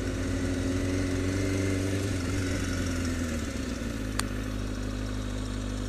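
Kawasaki Ninja ZX-6RR inline-four motorcycle engine running at low, steady revs as the bike rolls slowly. The note drops a little past halfway through, with a single short click about four seconds in.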